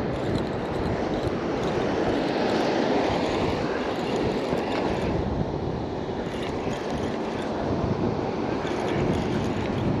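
Steady rumble of wind on the microphone and ocean surf, while a Penn spinning reel is cranked continuously to wind in a crab snare with a crab on it.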